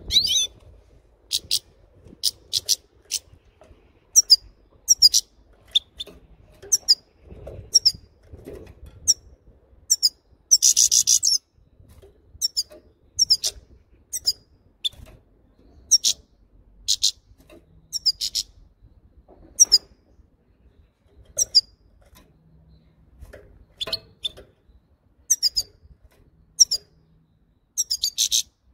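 Goldfinch giving short, high 'chir' calls one after another, with a brief burst of twittering about eleven seconds in and again near the end.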